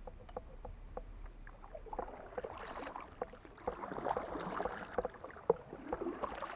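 Kayak paddle strokes dipping and splashing in the water, with light knocks and clicks against the kayak; scattered knocks at first, the splashing thickening from about two seconds in.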